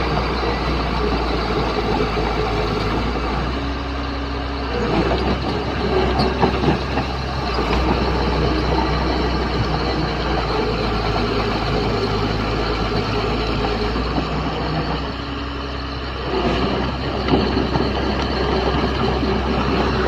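Bulldozer's diesel engine running continuously under work. Its note eases off briefly about four seconds in and again near the fifteen-second mark, then picks back up.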